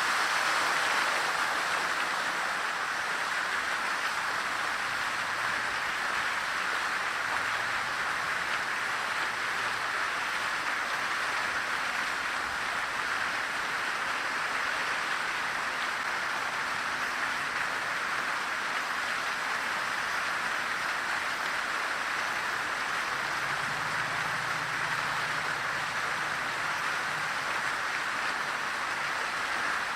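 Fountain water splashing in a steady, even rush. A faint low hum comes in for a few seconds near the end.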